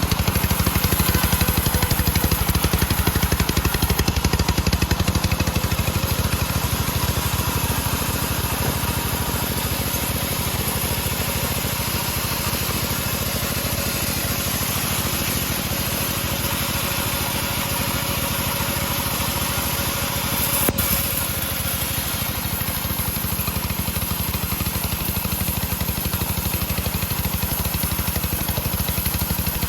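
Engine-driven homemade bandsaw mill running steadily, a little louder for the first few seconds, with a single sharp knock about 21 seconds in.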